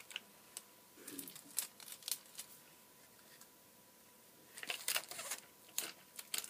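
Adhesive tape being pulled, torn and pressed onto cardboard: light crinkling and crackling clicks in two bunches, one about a second in and another near five seconds, with a quieter spell between.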